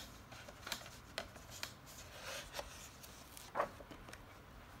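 Paper pages of a paperback coloring book rustling and being handled, with a few short crisp rustles, then a louder soft thump about three and a half seconds in as the book is shut on the desk.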